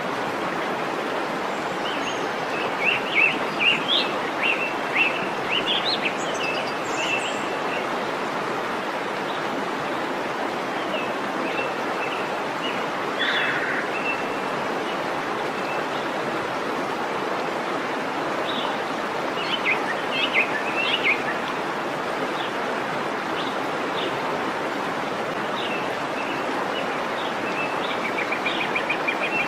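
Waterfall rushing steadily, with birds chirping in short scattered bursts over it, several times.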